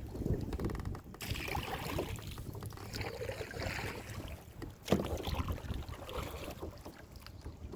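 Water splashing and sloshing around a kayak on the move, with wind rumbling on the microphone. There is a single sharp knock about five seconds in.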